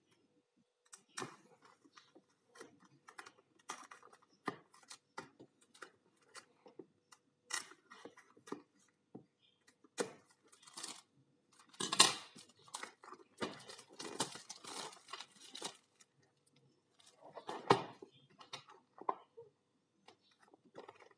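Hands handling a red plastic O-ring assortment box and its contents: irregular clicks, taps and rustling of plastic pieces. There is a louder cluster of clatter about twelve seconds in and another near eighteen seconds.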